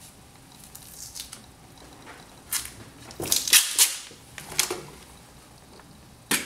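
Tape being torn and peeled off a taped roll of silver coins: irregular sharp crackles and snaps, loudest in a cluster a few seconds in and once more near the end.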